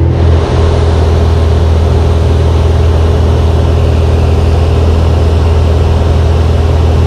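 A Mooney M20F's 200 hp four-cylinder Lycoming IO-360 engine and propeller in flight, heard inside the cockpit as a loud, steady low drone with rushing air noise above it.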